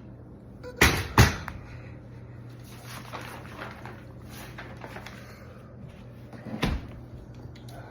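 Sharp knocks and light clatter of things being handled: two knocks close together about a second in, softer rustling after, and a third knock near the end.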